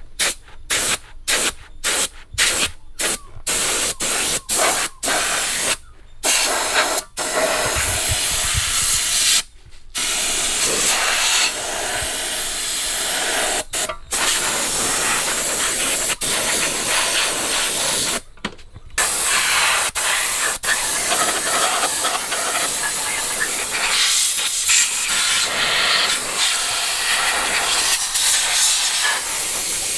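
Water jet from a washing lance hissing against a TVS Wego scooter's wheel and engine. It comes in about a dozen short bursts at first, then sprays for longer stretches with a few brief stops.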